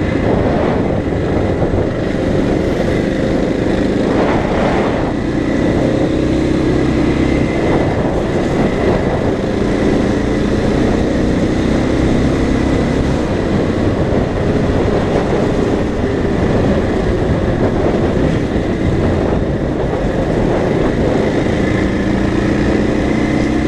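KTM dirt bike's single-cylinder engine running at speed, its pitch shifting a little with the throttle, under steady wind rush on the microphone.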